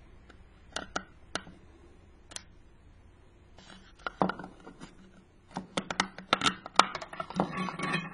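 Thin plastic drink bottle being handled, with a brass tube knocking and sliding inside it: a few sharp clicks in the first couple of seconds, then a dense run of plastic crackles and taps from about four seconds in, busiest near the end.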